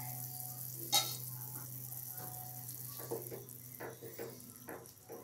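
Water with peas and tomato simmering in a nonstick kadai, with a single sharp knock about a second in. From about three seconds in, a wooden spatula stirs the mixture in quick strokes, roughly three a second.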